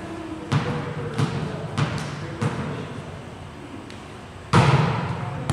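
A volleyball bounced four times on a gym floor, about twice a second, then a much louder smack a couple of seconds later as the serve is struck, echoing in the hall.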